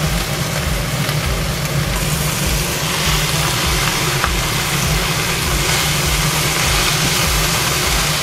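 Water spinach sizzling in hot oil in a frying pan as it is stir-fried, a steady dense hiss with a low rumble underneath.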